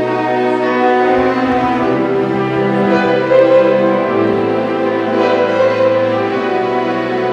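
Slow orchestral music led by bowed strings, playing long held notes and chords over a sustained low bass line.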